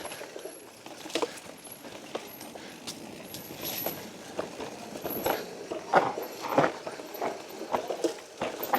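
Mountain bike riding over a rough, rocky trail: a steady rush of tyre and wind noise with irregular knocks and clatters from the bike, busier in the second half.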